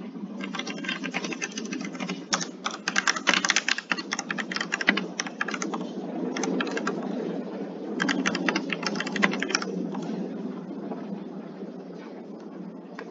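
Typing on a computer keyboard: runs of fast key clicks in several bursts over a steady low hum, stopping about ten seconds in.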